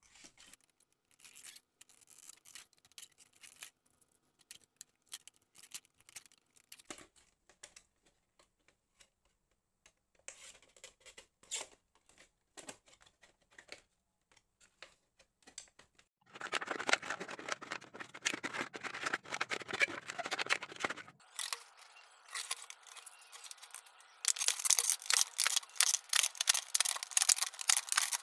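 A utility knife cutting thin clear plastic from a large water gallon. Scattered taps and crinkles of the plastic being handled, a stretch of dense crinkling partway through, then quick repeated sawing strokes of the blade near the end.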